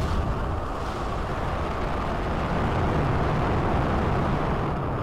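Rocket launch sound effect: a steady low rumble of engine noise as the rocket lifts off, easing slightly near the end.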